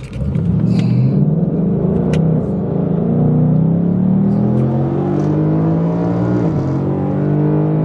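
V8 car engine under hard acceleration. Its pitch climbs steadily for several seconds, dips once near the end and starts climbing again.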